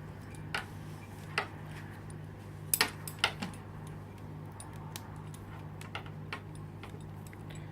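Metal bridle bit and buckles clinking as the bit is hooked onto the leather cheek pieces. A few sharp separate clicks come through, the loudest a quick pair about three seconds in, over a steady low hum.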